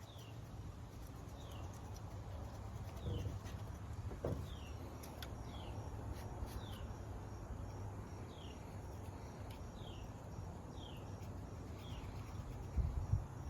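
A bird calling a short falling chirp, repeated a dozen or so times at roughly one a second, over a faint steady high insect trill and low background hum, with a few light clicks.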